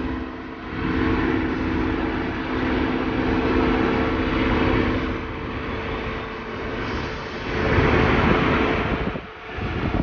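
Construction machinery running with a steady engine hum over a broad rushing noise. The noise swells about eight seconds in.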